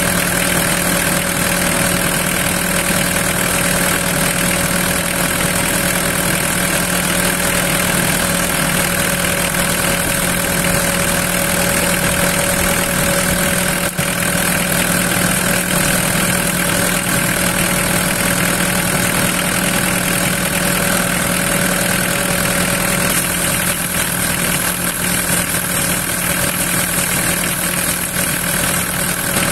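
Mitsubishi 4M40 four-cylinder turbo-diesel engine idling steadily while flush water circulates through its cooling system.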